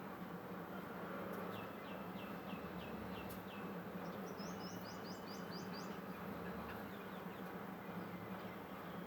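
A small bird calling in two quick runs of about seven short falling notes, the second run higher, over a steady low hum.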